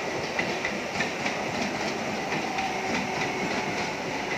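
Electric suburban local train (SER-liveried coaches) rolling past close by, its wheels clattering over the rail joints in a steady clickety-clack over a continuous running rumble.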